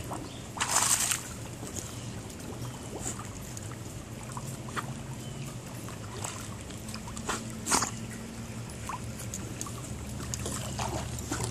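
Dogs paddling and splashing as they swim in a swimming pool, the water lapping and sloshing, with a louder splash about a second in and a few sharp water slaps later. A steady low hum runs underneath.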